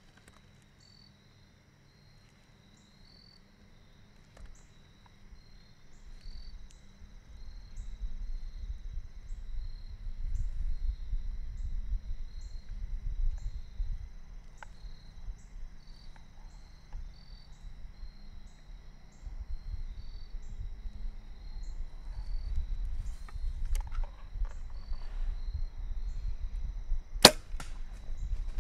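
Insects chirp at a steady rhythm about once a second over a low rumble, then near the end a single sharp, loud crack: a bow being shot at a deer.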